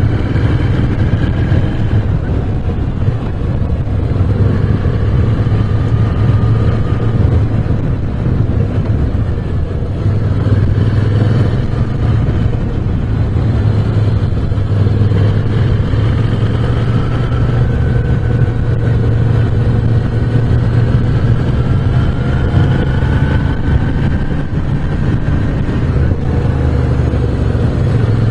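Moto Guzzi V7 Special's 750 cc V-twin running under way, its revs rising and falling several times as the throttle is opened and closed.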